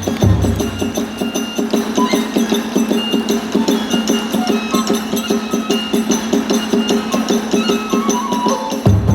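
Kagura accompaniment: a fast, even drum beat of about five strokes a second with a held flute-like melody over it, and heavy deep drum strokes just after the start and again near the end.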